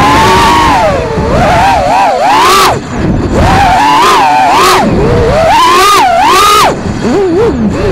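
Brushless motors and propellers of a 4S 5-inch FPV freestyle quadcopter whining loudly as the pilot works the throttle. The pitch swoops up and down in repeated punches, easing off briefly near three seconds and again near seven seconds.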